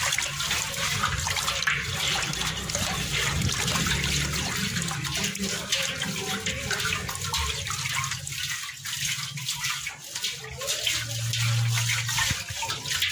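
Rinse water pouring in a steady stream from a motorcycle fuel tank into a steel basin, splashing into the pooled rusty water.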